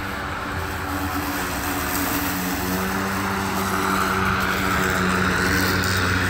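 EGO cordless battery-powered garden tool running steadily: an electric motor's whirring hum with a steady tone, slowly getting louder.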